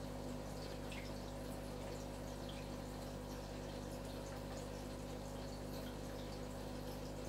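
Aquarium filtration running steadily: a constant low hum with faint trickling water and scattered small drip-like ticks.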